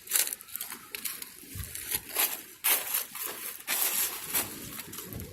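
Irregular bursts of rustling and scuffing from a person moving about. There are four or five bunched bursts, the loudest about three seconds in.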